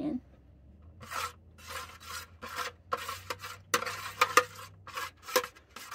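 Metal spoon scraping and rubbing across the bottom of an aluminium baking pan, spreading enchilada sauce, in a series of short strokes about two a second.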